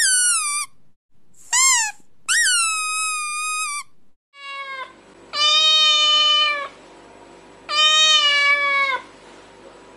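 A string of played sound effects: three high, pitch-bending squeaks in the first four seconds, then a cat meowing twice in long, drawn-out calls.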